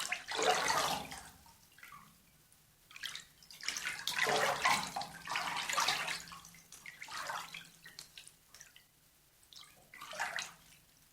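Water splashing in a bathtub, sloshed by hand in irregular surges with drips and trickles between; the biggest splashes come near the start and from about four to six seconds in.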